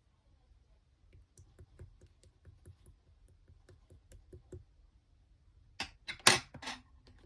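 Hands handling paper craft pieces: a string of faint light clicks and taps, then three or four louder crinkling rustles about six seconds in.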